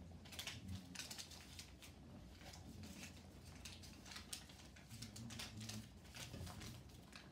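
Faint, irregular rustling and light scuffing of things being handled while tidying up, in short quick scrapes several times a second.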